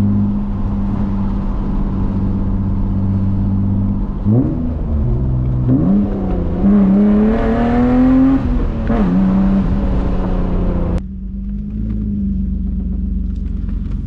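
BMW E36's inline-six heard from inside the cabin: running steadily, then a quick rise in revs about four seconds in and a longer climb in pitch as it pulls through a gear before easing off. Near the end it idles steadily at a lower level.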